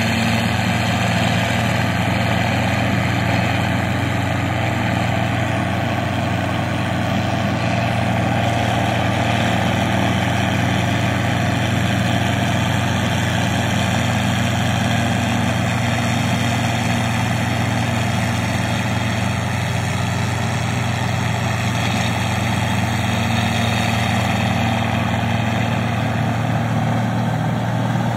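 New Holland 8060 combine harvester running steadily while cutting and threshing rice: its diesel engine holds a constant low note under a dense, even clatter of machinery.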